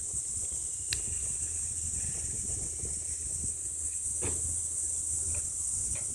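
Steady high-pitched chorus of insects, with a few sharp clicks and knocks, one about a second in and another near the middle, over a low rumble.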